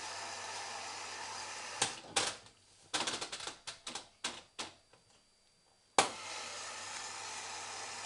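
Tricity Bendix AW1053W washing machine running with a steady hiss and low hum, which cuts out a couple of seconds in. A run of about a dozen irregular sharp clicks follows, then a short quiet, then one loud click, and the hiss starts again.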